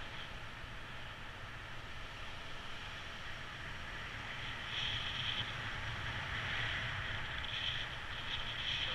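Airflow rushing over the microphone of a paraglider pilot's camera in flight: a steady wind hiss that grows somewhat stronger about five seconds in.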